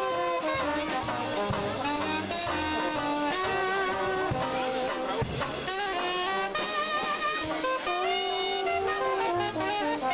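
A small jazz band playing live: trumpet and trombone carry the melody over a strummed banjo and a plucked double bass.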